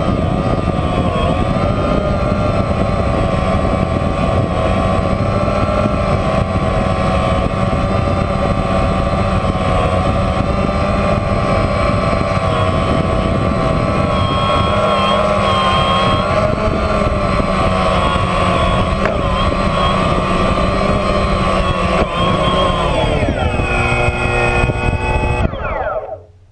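DJI Phantom quadcopter's motors and propellers buzzing steadily in flight, heard from the drone itself, the pitch wavering slightly as it manoeuvres. Near the end the pitch falls as it touches down and the motors spin down, then the sound stops abruptly.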